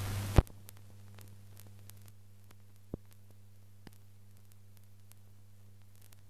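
Old film soundtrack noise: a steady low mains hum with scattered crackles and clicks. The hum is louder for the first half-second and ends in a sharp click, and two small pops come about three and four seconds in.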